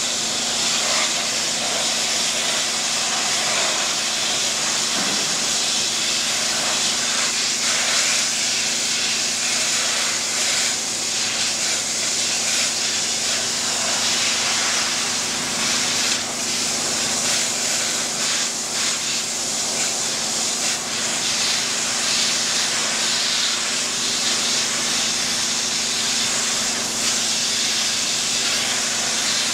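Densin high-pressure washer jet blasting water onto metal grating: a steady, loud hiss with a constant low hum beneath it.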